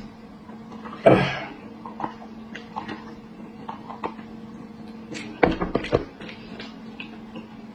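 Hands tearing apart a cooked spiced sheep's head: wet crackles and small clicks as meat and cartilage pull away from the bone, with a louder rasping burst about a second in and a cluster of sharp crackles about five and a half seconds in, over a steady low hum.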